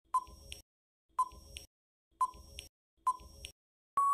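Quiz countdown-timer sound effect: a clock-like tick-tock, four times at about one a second, with a steady beep starting at the very end as the countdown runs out.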